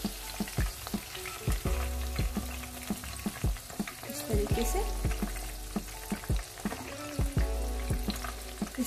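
Marinated chicken pieces deep-frying in hot oil, a steady sizzle, while a wire-mesh spider strainer scoops the fried pieces out of the kadhai. Frequent sharp clicks of the strainer knock against the pan.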